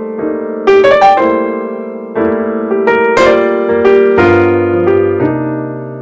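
Background piano music: struck melody notes and chords, each fading after it sounds, with lower bass notes joining about four seconds in.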